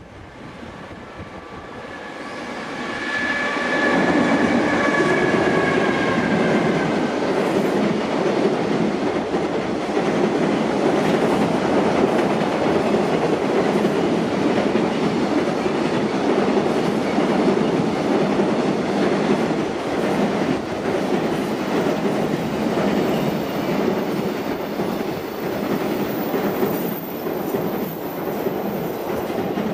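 JR Freight EF210 electric locomotive and a long container freight train crossing a steel girder bridge. A high whine that falls slightly in pitch comes as the locomotive passes in the first several seconds. Then the wagons crossing make a steady, loud rumble and clatter.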